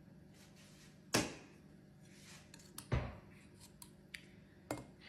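Kitchen utensil knocking and clinking against a pot and plate while food is dished up: two sharp knocks nearly two seconds apart, then a few lighter clicks.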